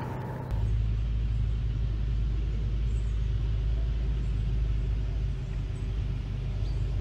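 A steady low rumble with little higher sound, starting abruptly about half a second in.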